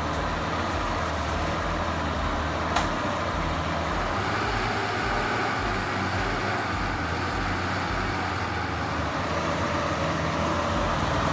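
A heavy vehicle's engine running steadily under load, with a low, evenly pulsing drone. A single sharp click comes about three seconds in.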